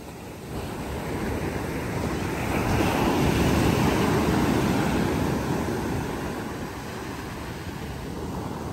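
Sea waves on a sandy beach: a wave breaks and washes up the sand, swelling to its loudest about three seconds in and ebbing away after about six seconds.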